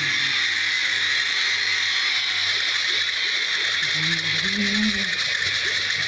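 Cartoon theatre audience making steady crowd noise, with a short pitched vocal cry about four seconds in.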